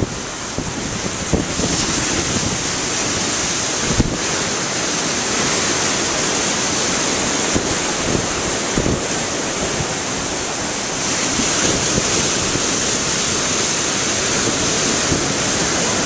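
Heavy ocean surf: large waves breaking and foaming over shoreline rocks, a steady, unbroken wash of noise.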